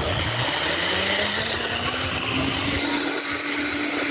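Zipline trolley pulleys running along the steel cable: a steady whir over a rushing hiss, its pitch rising slowly, with a low rumble at the start.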